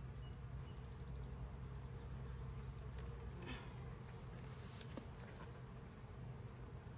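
Honeybees buzzing steadily around an opened hive. A steady high insect trill runs behind it, and there is one faint tick about five seconds in as a hive tool works the top box.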